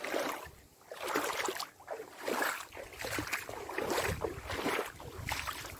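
Bare feet wading through a shallow rainwater puddle: a series of sloshing splashes, about one to each step.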